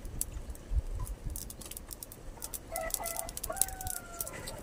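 A rooster crows once in the second half, a few short notes leading into a longer held note that drops at the end. Scattered faint sharp ticks run underneath.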